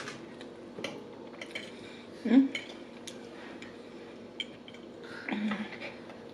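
Cutlery clinking and scraping against a plate during eating, in scattered light clicks. A short rising whine about two seconds in is the loudest sound, with a fainter one near the end.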